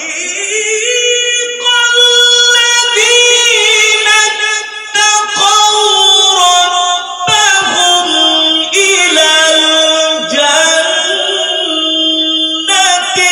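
A man reciting the Quran in melodic tilawat style into a microphone. He holds long, high notes with ornamented turns, broken by short breaths every few seconds.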